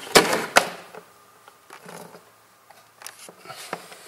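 Handling noises: a loud rustling scrape with two sharp clicks in the first half-second, then scattered light clicks and taps.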